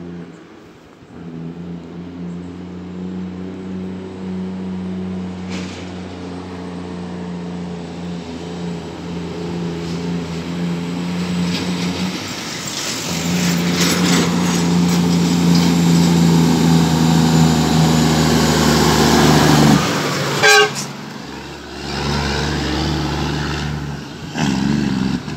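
International Paystar dump truck's Caterpillar C12 diesel running under load, its steady note broken about twelve seconds in by a gear change through the 18-speed gearbox, then growing louder as the truck approaches. A short loud horn blast comes about twenty seconds in, and then the diesel is heard pulling away.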